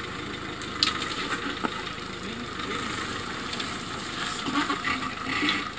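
Suzuki Jimny 4x4's engine running at low revs as it crawls down a rocky, rutted trail, with a couple of sharp knocks about a second in.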